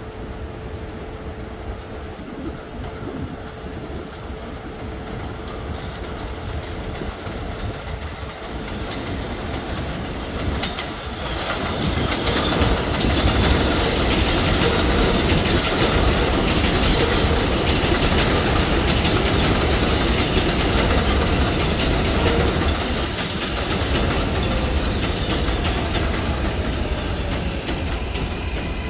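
New York City Subway 7 train pulling in on the adjacent elevated track, its wheels clattering over the rail joints. The sound grows louder from about ten seconds in, with a falling motor whine near the end as the train slows.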